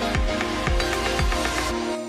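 Electronic background music with a steady kick-drum beat, about three beats a second; the drums drop out near the end, leaving sustained tones.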